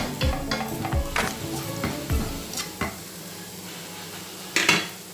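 Spatula scraping and tapping in a nonstick frying pan as onion and spice masala is stirred, over the sizzle of the masala frying in oil. The stirring stops about three seconds in, leaving a steady sizzle, with one more brief scrape near the end.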